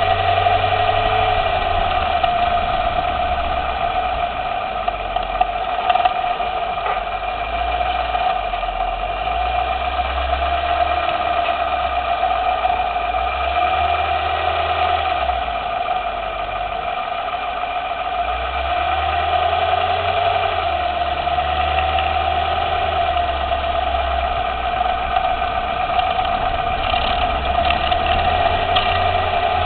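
2010 Lexus LS 460L's V8 running with a steady hum, a few light clicks scattered through it: the suspension clicking that the owner suspects comes from the outer tie rod, sway bar or steering knuckle.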